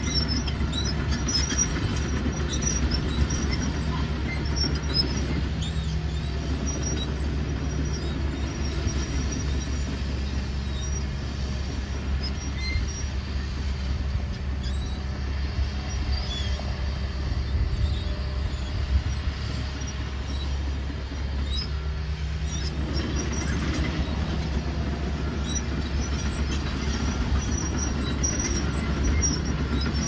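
John Deere 550K crawler dozer's diesel engine running steadily while it pushes dirt, with scattered short metallic squeaks from its steel tracks. The engine sound thins out through the middle and picks up again about three-quarters of the way through.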